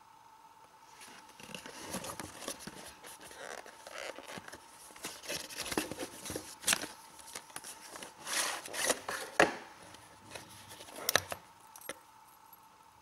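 Cardboard flashlight box being opened by hand and its clear plastic tray slid out: irregular rustling and scraping of card and plastic, with several sharp plastic clicks, the loudest in the second half.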